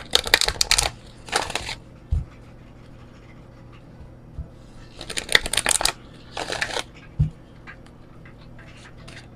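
A deck of large oracle cards being shuffled by hand in four short bursts of rapid flicking, two near the start and two a little past the middle. Two low thumps come in the pauses, about two seconds in and about seven seconds in.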